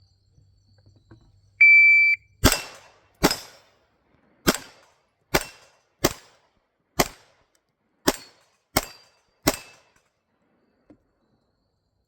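A shot timer gives one steady beep about a second and a half in. Then a TTI Canik pistol fires nine shots at steel plates over about seven seconds, unevenly spaced, with a faint ringing tone after some of the shots.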